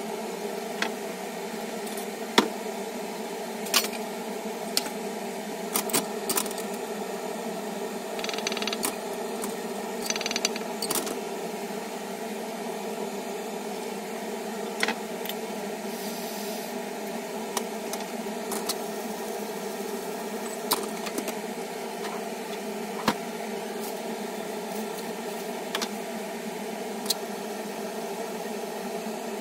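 Sliced garlic frying gently in olive oil in an aluminium frying pan on a gas stove: scattered small pops and ticks over a steady hum, sped up fourfold. There is a brief hiss about nine seconds in and another about ten seconds in.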